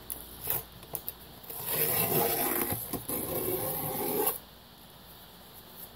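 Masking tape and paper being peeled off a cylinder head's intake port: a continuous ripping noise about three seconds long, starting about a second and a half in, after a couple of small clicks.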